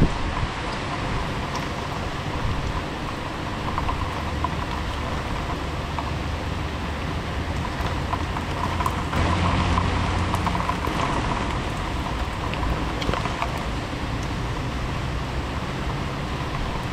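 Heavy rain falling steadily in a thunderstorm downpour, with a low rumble that swells about nine seconds in and fades by eleven.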